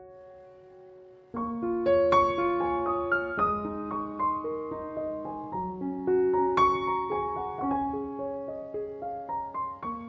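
Background piano music: a gentle melody of struck notes over soft low notes. A held chord dies away at the start, and a new phrase begins just over a second in.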